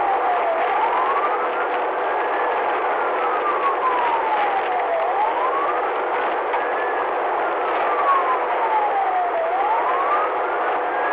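Police siren on a slow wail: the pitch climbs over about two seconds, then falls more slowly, repeating about every four and a half seconds, over steady road noise from the pursuing patrol car.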